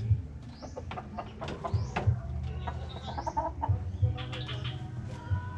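Chickens clucking, with short high rising peeps among them, mixed with scattered knocks and rattles from the slatted bamboo coop being handled.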